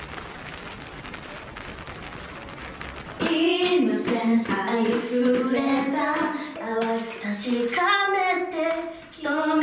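A faint steady hiss for about three seconds. Then a group of young women sing together from lyric sheets in a vocal practice, holding notes, with a short break between phrases near the end.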